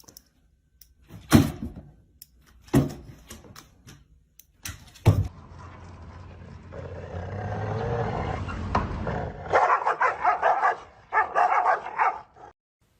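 A dog barking: a few separate loud barks, then a quicker series of barks near the end.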